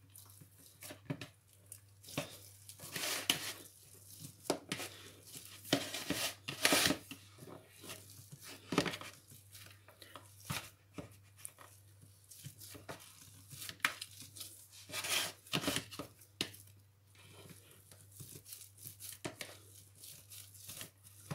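Potatoes being mashed with a metal wire-grid potato masher in a plastic bowl: irregular soft knocks and scrapes as the masher is pushed down again and again.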